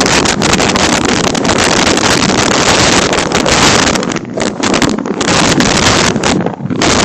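Storm-force wind gusting hard against a security camera's microphone: a loud, dense rushing noise, broken by a few brief lulls in the second half.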